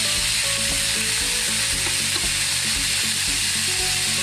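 Strips of veal sizzling steadily as they fry in hot clarified butter in a frying pan, stirred and turned with a wooden spatula.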